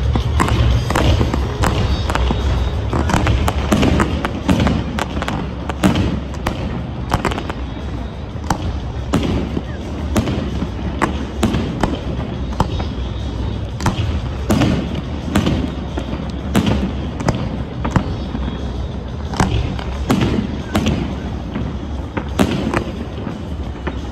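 Aerial fireworks bursting overhead: many sharp bangs and cracks at uneven intervals, some in quick clusters, over a steady low rumble.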